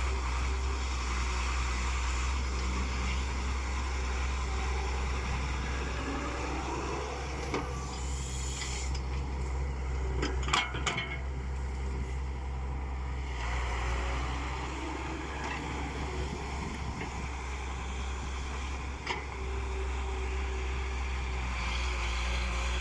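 Excavator's diesel engine running steadily, with a few sharp metallic knocks about halfway through.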